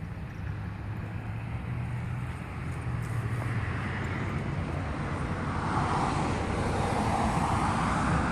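A vehicle approaching, its steady rumble growing louder throughout.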